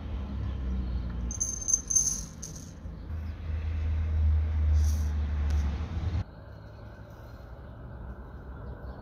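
Coarse salt crystals pouring off a metal spoon into a glass bowl, rattling and ticking against the glass in a short run of clicks, with another brief patter later. A low rumble runs underneath and drops off suddenly about six seconds in.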